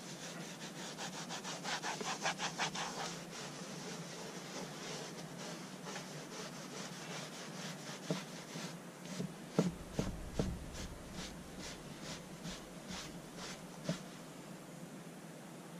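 Dry microfiber cloth rubbed in quick back-and-forth strokes over the carpeted back of a truck seat to lift embedded dog hair: a brisk scratchy rhythm of several strokes a second, loudest early on the first burst and picking up again midway. A few dull knocks come around two-thirds of the way through.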